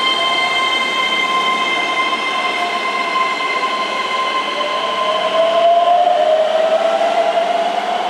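Keihan 3000 series electric train pulling away. Its traction motors give a whine that rises steadily in pitch from about halfway through as the train accelerates. Before that, a steady multi-tone electrical hum from the train fades out.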